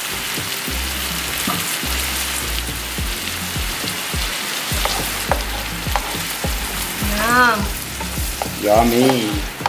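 Creamy butter-chicken gravy with curry leaves bubbling and sizzling steadily in a non-stick frying pan. A spatula stirs it near the end.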